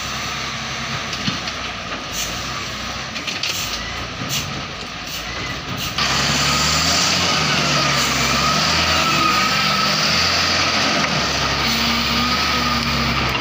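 Wheel loader's diesel engine running under load with a wavering whine as it works its bucket of soil; the engine gets much louder and closer about six seconds in.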